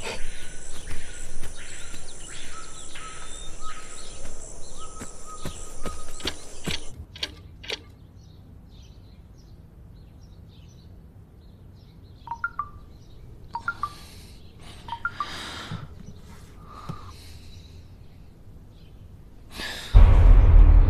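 High, steady chorus of insects with short bird calls, which cuts off about seven seconds in. A quieter stretch with scattered short bird chirps follows, and near the end a sudden loud low boom starts the music.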